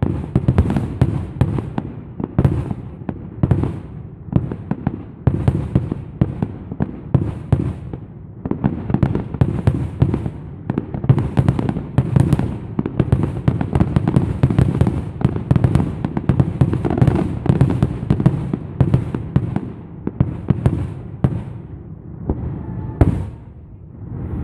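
Fireworks going off in quick succession, a dense run of booming shell bursts and crackling that thins out in the last couple of seconds.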